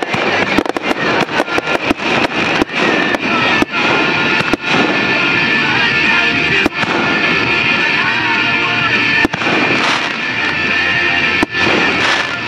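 Fireworks finale: a rapid run of aerial shell bursts cracking and banging over music, thinning after about four seconds to single bangs a few seconds apart.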